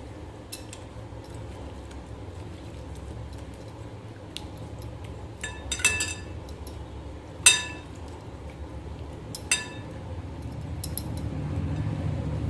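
Kitchen dishes and utensils clinking now and then, a handful of sharp separate clinks, one in the middle loudest, over a steady low hum.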